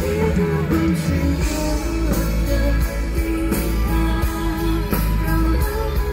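Live pop-rock band playing a slow song: drums, bass and guitars, loud and steady throughout, with a sustained melody line over them.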